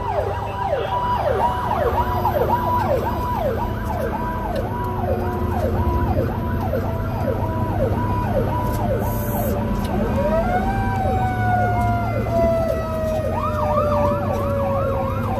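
Emergency vehicle sirens: an electronic siren yelps in a fast up-and-down sweep, a few times a second. About ten seconds in, a second siren tone rises sharply and then slides slowly down. A steady low vehicle rumble runs underneath.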